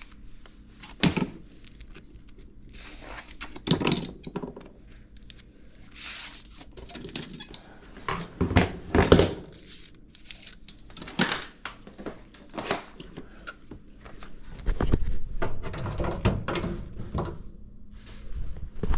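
Scattered knocks, clicks and rustles of hands and tools working on the wiring of a mobile home electric furnace, over a faint steady hum, with a run of heavier low thumps in the last few seconds.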